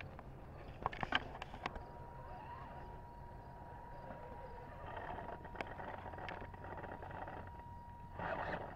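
Radio-controlled rock crawler working its way up wooden steps: a faint steady electric whine from its motor and controller. There are a few sharp clicks and knocks of tyres and chassis on the wood about a second in, and a short louder burst near the end.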